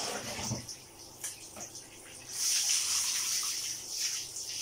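Water poured from a plastic tub over a wet golden retriever, splashing steadily onto its coat and the tiled floor, starting about two seconds in. Before that, a few small splashes and drips.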